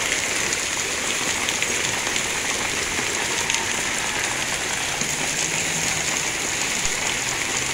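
Hailstorm: a steady, dense patter of hailstones and rain striking the ground, lawn, patio table and fabric covers, with fine individual ticks in the hiss.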